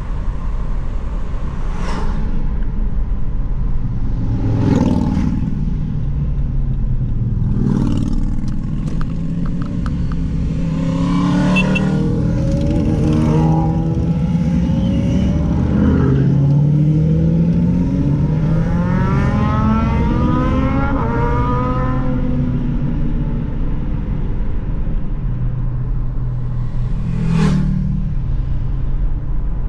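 Vehicle engine and road noise while driving a winding mountain road. Engine notes climb and fall in pitch through the middle, and brief swells of passing vehicles come at about 2, 5, 8 and 27 seconds.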